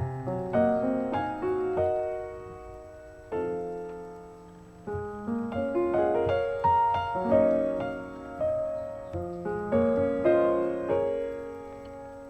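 Solo piano music at a gentle pace: single notes and chords struck and left to ring and fade, several phrases in a row.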